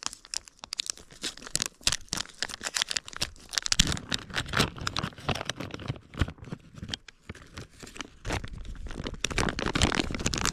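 Plastic soft-bait bag (Berkley PowerBait MaxScent package) crinkling and rustling as it is handled and opened close to the microphone, a run of sharp crackles that grows thicker and louder about four seconds in.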